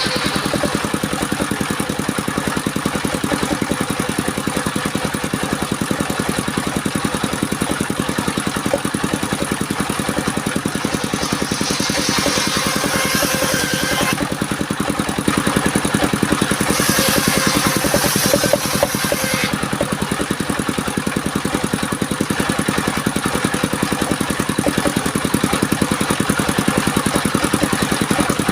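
Engine of a portable circular sawmill running steadily. About halfway through, a high hissing rush rises twice for a few seconds each: the blade cutting through the log.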